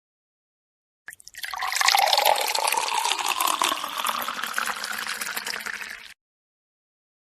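Liquid poured in a steady stream into a container, splashing, for about five seconds; a resonant tone in the splash rises slowly as it goes. It starts about a second in and cuts off abruptly.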